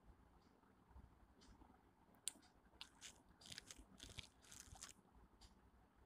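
Faint rustling and crackling of a cotton shirt being handled and turned over by hand, in a series of short scattered rustles with a light click about two seconds in.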